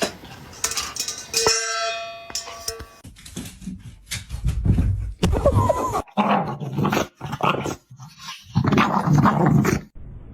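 A dog vocalizing in a series of loud bursts with short breaks between them. A short ringing tone sounds about a second and a half in.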